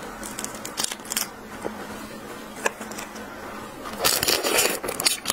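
Small clicks and crackles as the shell of a raw shrimp is peeled off by hand. About four seconds in, louder wet chewing of the raw shrimp meat follows, close to a clip-on microphone.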